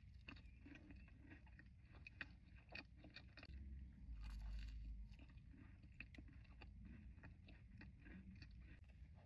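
Close-miked chewing and biting of a Crumbl cookie: quiet, irregular mouth clicks and crunches, several a second.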